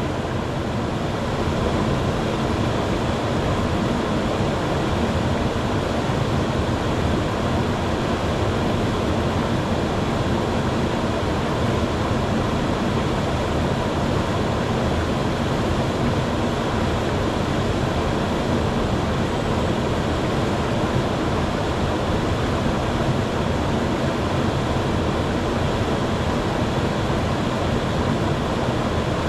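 Small waterfall pouring into a plunge pool in a narrow rock gorge: a deep, steady rush of falling water that does not change.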